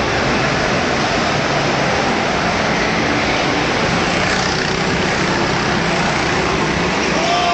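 Go-kart engines running under a dense, steady rush of noise, with an engine's pitch rising and falling near the end.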